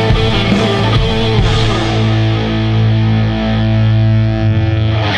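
Rock music with distorted electric guitar, settling into a long held chord about two seconds in.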